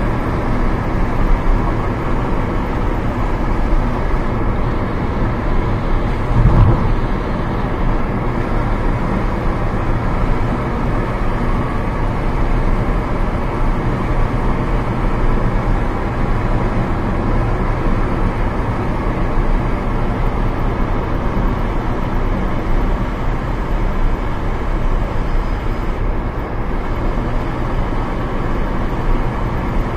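Alfa Romeo 156 being driven, heard from inside the cabin: steady engine and road noise with wind coming in through an open window. A brief low thump comes about six and a half seconds in.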